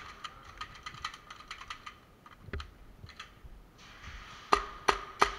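Airsoft gunfire: a scatter of quiet sharp clicks, then three loud sharp shots about a third of a second apart near the end.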